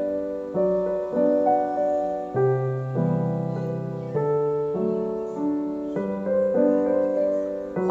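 Background music of slow, held chords that change about once a second.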